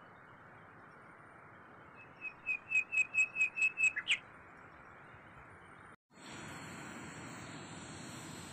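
A bird calls a quick run of about ten sharp, high notes, about five a second, growing louder and ending on a short downward slide, about two seconds in. After a brief break near six seconds, a steady outdoor hiss takes over.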